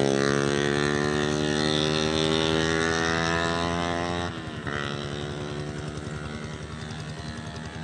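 A motor engine running with a steady hum, which drops away about four seconds in and then fades off.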